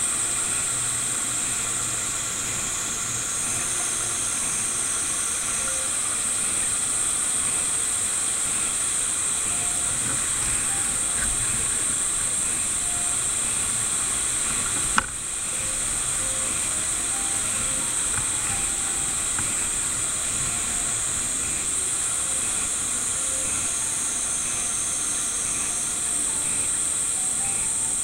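Steady high hiss with faint, sparse musical tones beneath it, and one sharp click about halfway through.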